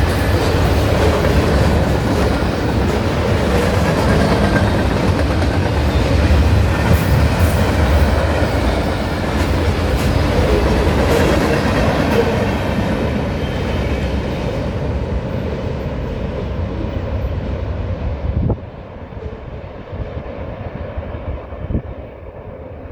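CSX freight train rolling past, a deep rumble with the clickety-clack of wheels over rail joints. The sound thins out and then drops off suddenly near the end as the train passes.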